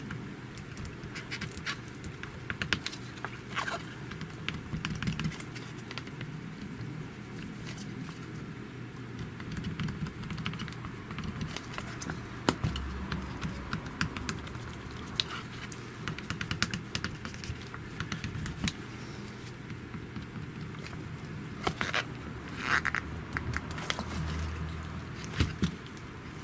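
Scattered light clicks, taps and rubbing of fingers handling a phone and working at its screen protector, a few sharper taps about halfway through and near the end.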